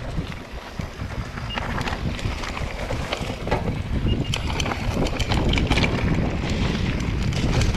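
Wind rushing over the camera microphone while a mountain bike rolls down a dirt singletrack, with frequent clicks and rattles from the bike over the bumps. It grows louder toward the end as the bike picks up speed.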